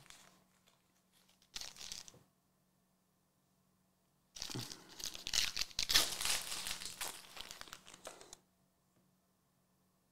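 Foil wrapper of a Premier League trading card pack being torn open and crinkled by hand: a brief rustle about a second and a half in, then a longer stretch of tearing and crinkling foil from about four to eight seconds in.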